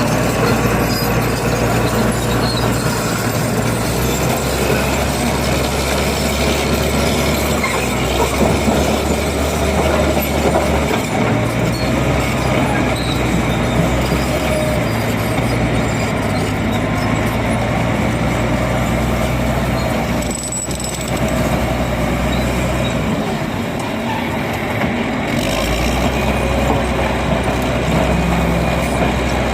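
Bulldozer at work: its diesel engine runs continuously under a dense mechanical noise, the engine note shifting in pitch and strength several times as the load changes.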